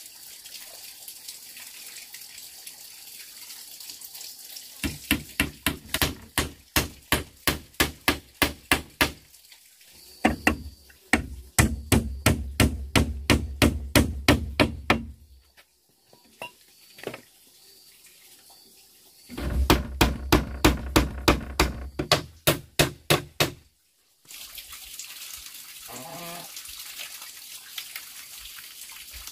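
Rhythmic hand-tool strikes on bamboo, about three to four a second in runs of several seconds, over a steady hiss of running water.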